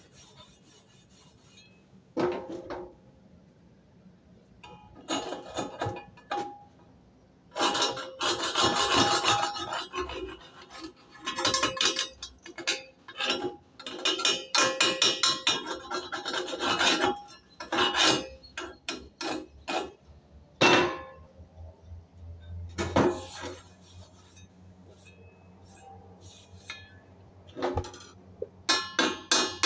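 Steel wire brush scrubbing slag off a freshly welded E6013 fillet joint in bursts of rapid strokes, with a few separate sharp knocks in between.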